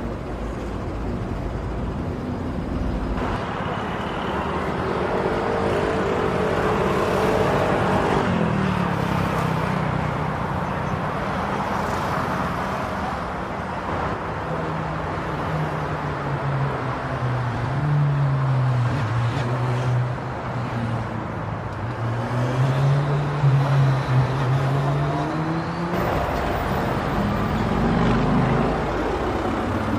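Road traffic: motor vehicle engines running and passing, their pitch slowly rising and falling over a steady rush of traffic noise.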